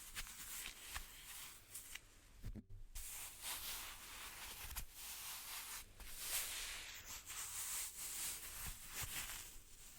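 Hands rubbing and brushing against each other close to the microphone: a soft, continuous rustling that comes in quick strokes, with a short pause a little under three seconds in.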